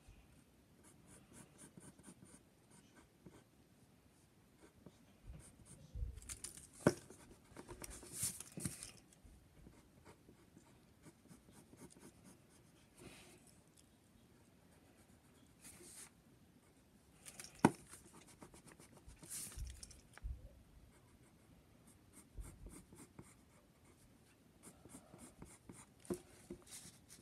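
Mechanical pencil scratching on paper in short bursts of sketching strokes with pauses between them, and two sharp clicks, one about a quarter of the way in and one past the middle.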